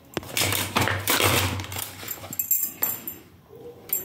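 Metal kitchen utensils, a wire whisk and spoons among them, clinking and rattling against each other as they are dropped and shuffled into a plastic utensil holder, in a run of irregular clatters and sharp clicks.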